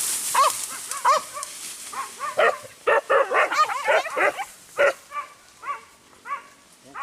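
A pack of hunting dogs barking and yelping, many short calls overlapping. The calls come thickest in the middle and thin out near the end.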